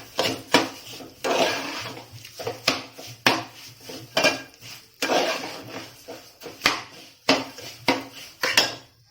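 Spoon stirring and scraping ghee-roasted broken wheat with sugar and jaggery in a cooking pot: repeated clinks and scrapes of the spoon against the pot, roughly one or two a second, stopping near the end.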